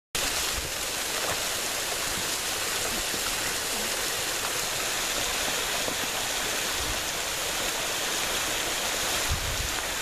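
Steady rushing of water from a thin waterfall falling onto rocks and running off as a small stream, with a low bump near the end.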